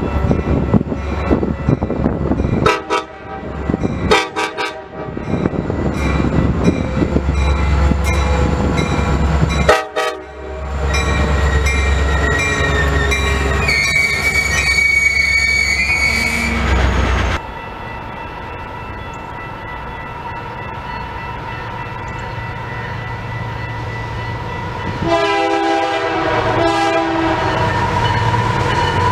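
Metra diesel commuter locomotive sounding its horn in three blasts as it approaches, then passing close with its engine running loud and a high squeal from the wheels or brakes. After an abrupt cut, a Canadian Pacific freight train approaches more quietly and blows its horn about three-quarters of the way through.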